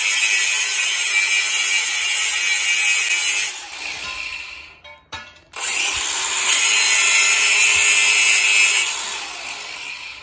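Cordless angle grinder cutting metal to shorten a part, a steady high-pitched grinding noise. It stops about three and a half seconds in, then cuts again from about six seconds in and winds down over the last second.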